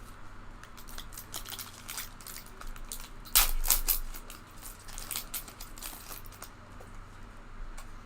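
Foil wrapper of a Panini Mosaic card pack crinkling and tearing as it is ripped open, in a run of short crackles with the loudest rip a little over three seconds in.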